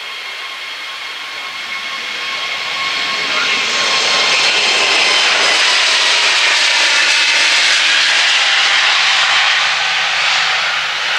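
Airbus A321neo turbofan engines at takeoff power as the airliner rolls past on its takeoff run. A dense jet noise with a steady high fan whine in it grows louder over the first four seconds, stays loud, and eases slightly near the end.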